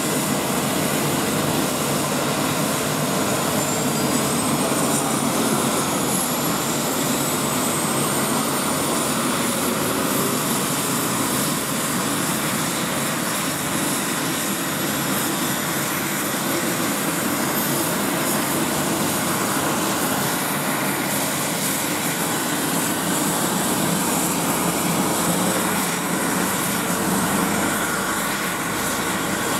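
Eurocopter EC135 twin-turbine helicopter running on the ground with its rotors turning, giving a loud, steady rush of turbine and rotor noise. A high turbine whine climbs in pitch over the first ten seconds or so as the engines spool up, then holds steady.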